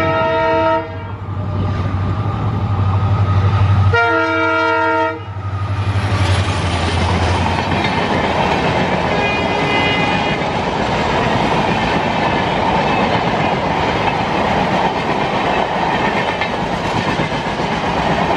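WDG4D diesel locomotive (EMD two-stroke V16) passing at speed and sounding its horn twice: a blast ending just under a second in, and another of about a second about four seconds in. Its low engine drone fades by about seven seconds. After that, the LHB coaches roll past with a steady rush and clatter of wheels on rail.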